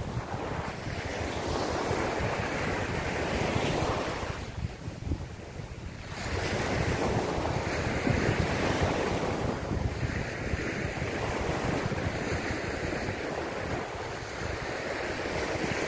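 Small surf waves breaking and washing up a sandy beach, with wind buffeting the microphone. The wash surges and ebbs, dropping to a brief lull about five seconds in before building again.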